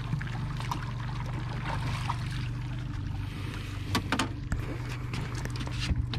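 Steady low hum of a boat's motor with water trickling and lapping against the hull, and a few sharp knocks, the clearest about four seconds in and near the end.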